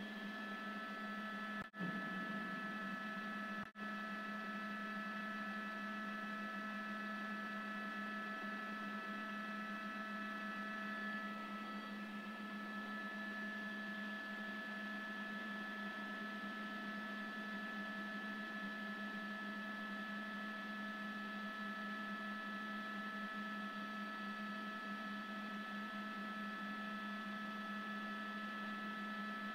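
Steady hum with several thin, steady higher tones over it, a few of which stop about eleven seconds in. The sound cuts out for an instant twice near the start.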